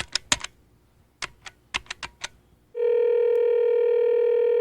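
A telephone number being keyed in, a quick run of about ten button clicks, then one steady ringing tone of about two seconds as the call rings through.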